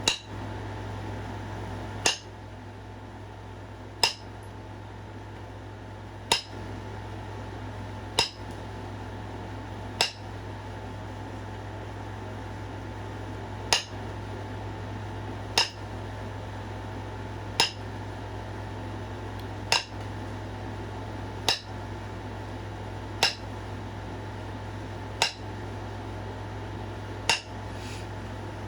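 Stone clicking sharply as flakes are struck or pressed off a hand-knapped stone point, about every two seconds, each click with a short glassy ring. A steady fan-like hum runs underneath.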